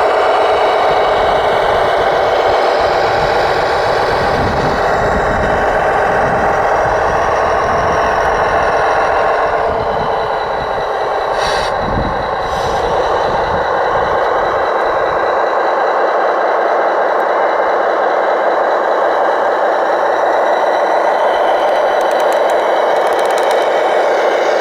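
Radio-controlled construction machines running: a steady, dense engine-like drone, with low rumbling through the first half that drops away about fifteen seconds in.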